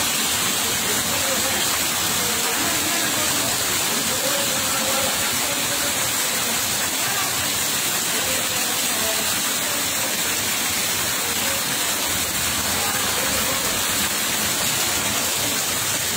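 Steady rushing of water.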